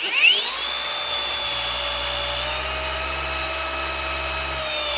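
Rupes cordless dual-action polisher, set to speed 4, spinning up with a rising whine and then running with a steady high whine that steps up slightly about halfway through.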